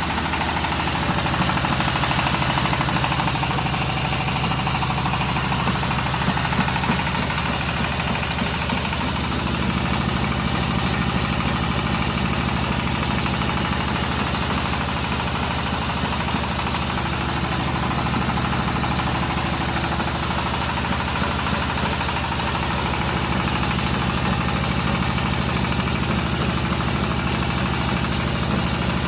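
Extruder machine running steadily under a constant mechanical drone.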